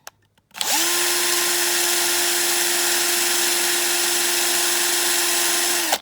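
Small electric drill with a 1.5 mm bit spinning up and running at a steady whine for about five seconds, then stopping, while drilling out a rivet post on a die-cast toy car.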